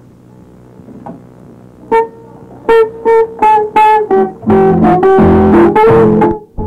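An instrument on an old home cassette recording, guitar or piano, picks out a run of about eight loud single notes, then sounds a fuller held chord. The sound cuts off abruptly near the end, as when the cassette recording is stopped mid-song.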